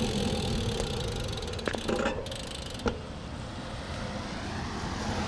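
Motor traffic: a car engine fading away over steady road noise, with a few light clicks.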